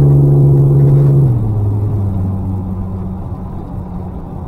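Ford Explorer Sport Trac's 4.0-litre V6, heard from inside the cab: a loud, steady exhaust drone that drops in pitch about a second in as the revs fall, then carries on quieter as a low drone.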